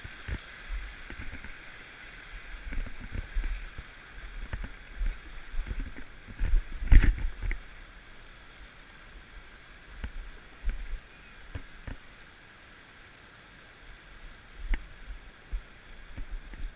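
Steady rush of flowing river water, with scattered low knocks and thumps; the loudest is a sharp knock about seven seconds in.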